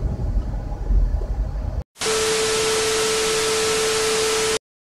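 Low road rumble inside a moving car, then, after a brief dropout about two seconds in, a loud burst of TV static hiss with a steady beep tone lasting about two and a half seconds and cutting off sharply: a static-and-test-tone transition effect laid over colour bars.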